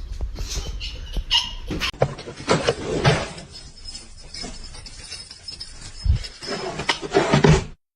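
Short, irregular sounds from a pet animal, loudest about three seconds in and again near the end, cutting off suddenly just before the end.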